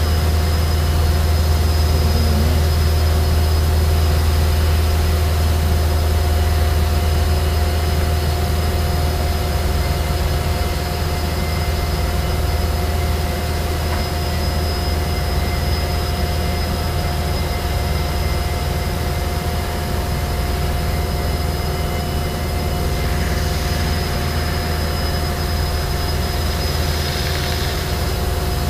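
ESCO PM III 1530 CNC abrasive wire profile saw running as it cuts a dense polyisocyanurate foam block: a steady machine drone with a strong low hum and several fixed whining tones, easing slightly about ten seconds in.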